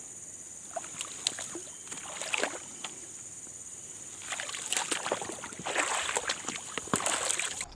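Steady high-pitched drone of crickets or other insects, with scattered clicks and rustling, sloshing handling noises in the water that grow busier from about four seconds in. The insect drone cuts off suddenly near the end.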